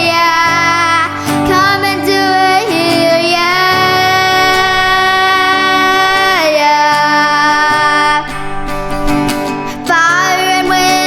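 Worship music: a female voice sings long held, sliding notes with no clear words over acoustic guitar, easing off for a moment near the end.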